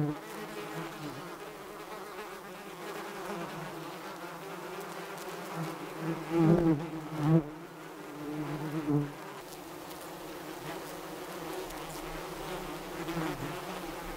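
Honeybees buzzing around flowers: a steady drone that swells louder twice, about six to seven seconds in and again near nine seconds, as bees pass close.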